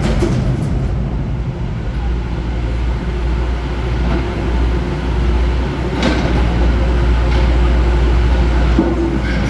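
Caterpillar 420 backhoe loader's diesel engine running steadily, with a few knocks, the clearest about six seconds in.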